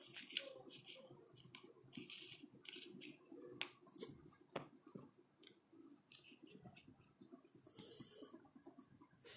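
Faint, scattered light clicks and brief rustles of fingers pressing and rolling a small piece of modelling clay on a plastic plate, with a louder brushing noise about eight seconds in.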